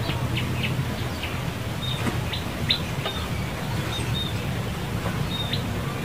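Small birds chirping: a dozen or so short, high chirps scattered through, over a steady low hum.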